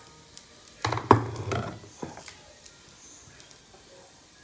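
A short clatter of knocks and thumps about a second in, followed by a few lighter taps.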